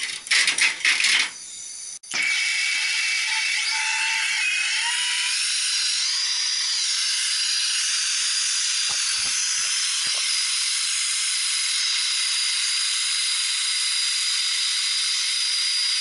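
Brazing torch flame hissing steadily at a copper refrigerant-line joint on a compressor, starting suddenly about two seconds in after a few rattling handling clicks.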